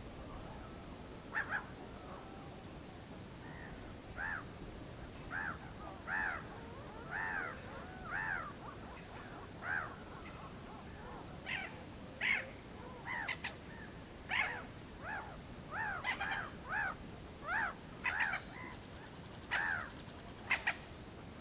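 A bird calling over and over in short, arching calls, starting about a second in and coming faster, about one a second, in the second half.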